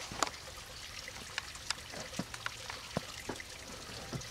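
Water trickling, with scattered irregular drips and ticks.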